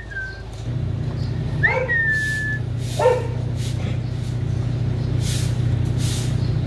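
A dog barks twice and gives a high, thin whine, over a steady low hum, like a motor, that starts under a second in.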